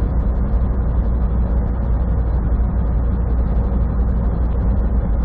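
Semi truck cruising at highway speed, heard from inside the cab: a steady low diesel drone mixed with tyre and road noise.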